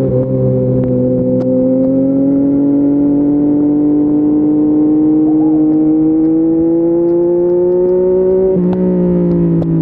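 Yamaha MT-09's three-cylinder engine through an Akrapovic full-system exhaust, pulling steadily under gentle acceleration with its pitch slowly rising. Near the end the pitch drops sharply at an upshift, then begins to climb again.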